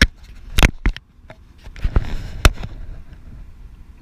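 Handling noise from a fishing rod and spinning reel: a string of sharp knocks and clicks, the loudest about two and a half seconds in, with a brief rustling scrape around it.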